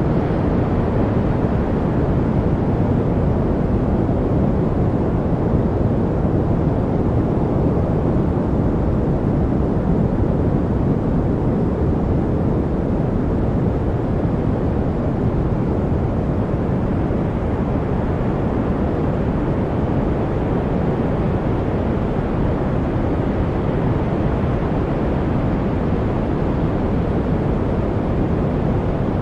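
Steady noise for masking, a constant deep rushing hiss with little treble that does not change.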